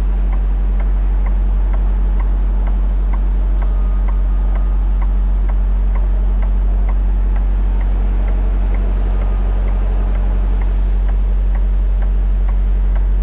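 Semi-truck diesel engine idling steadily, heard from inside the cab, with a light regular clicking about twice a second.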